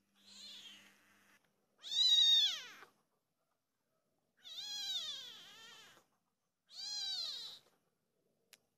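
Small calico kitten meowing three times, long high calls that rise and then fall in pitch, the first the loudest. A fainter, rougher sound comes just before them.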